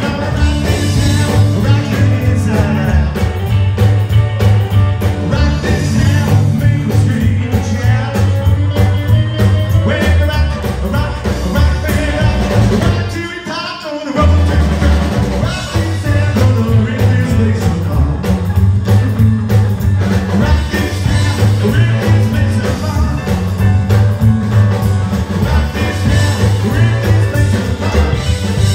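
Live rockabilly band playing: upright double bass, electric guitar and drum kit, with a man singing. About halfway through the bass and drums stop for a moment under a sung line, then the band comes back in.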